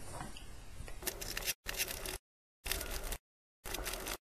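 Faint clicks and scrapes of hands handling clear acrylic parts, a metal linear bearing slider and small screws on a wooden table. From about a second in, the sound comes in half-second snippets separated by gaps of dead silence.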